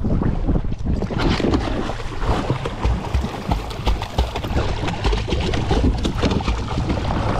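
A dog falling off a kayak into the river and splashing in the water beside it, with the kayak paddle dipping in and knocks on the plastic hull. The splashing starts suddenly and keeps on in a dense run of splashes and knocks.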